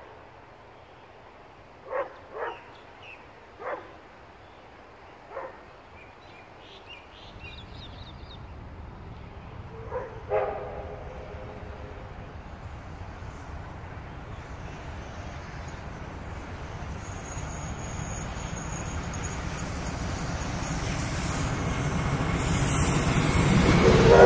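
K-class steam locomotive K183 approaching along the track, its rumble growing steadily louder from about seven seconds in. A dog barks several times in the first ten seconds.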